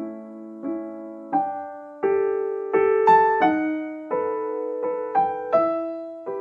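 Background piano music: a slow melody of single notes and chords, each struck and left to fade, about one every 0.7 seconds.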